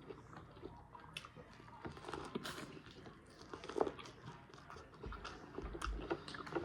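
Close-up eating sounds: a person chewing and biting food, with small wet smacks and light crunches.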